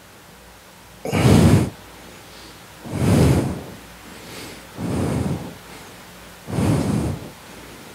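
Four short, breathy rushes of noise close on a microphone, about two seconds apart, the first the loudest.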